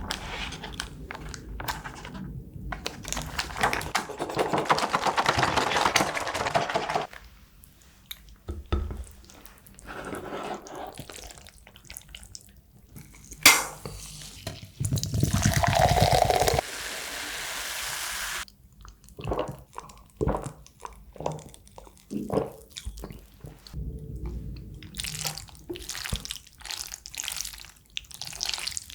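Close-miked eating of jjajangmyeon noodles in black bean sauce: stretches of wet, sticky noodle sounds and slurping, then many short wet smacks and clicks of chewing in the second half.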